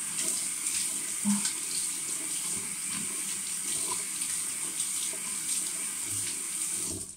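Water running from a bathroom tap into a sink as a face is rinsed, with small irregular splashes. The flow cuts off near the end as the tap is shut.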